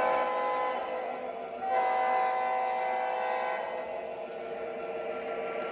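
Model diesel locomotive's electronic horn sounding twice: a short blast that ends within the first second, then a longer one from about two seconds in to past the middle, over the steady drone of the running train.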